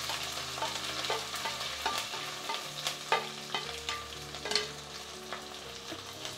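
Sliced shallots and curry leaves sizzling in hot sesame oil in a pan while they are stirred, a spatula knocking and scraping against the pan now and then.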